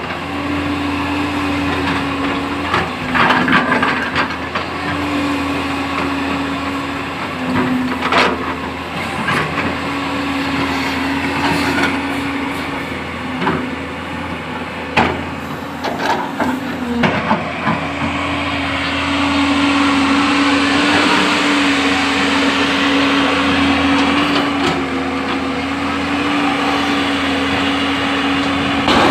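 JCB backhoe loader's diesel engine running steadily, with sharp knocks and clanks now and then as it works. About two thirds of the way through, a louder rushing noise builds over the engine and holds.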